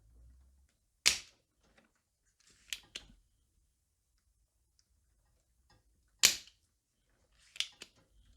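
Sharp clicks and knocks of small tools handled on a workbench during desoldering: two loud snaps, about a second in and about six seconds in, each followed a little later by a pair of lighter clicks.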